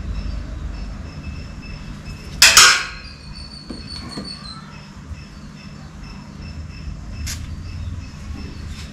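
Metal forceps set down on a stainless steel table about two and a half seconds in: a sharp clank whose high ringing fades over about two seconds, over a steady low hum. A few small clicks follow near the end.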